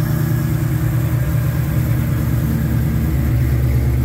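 Whipple-supercharged Gen 3 Ford Coyote 5.0-litre V8 idling steadily with a low, even drone.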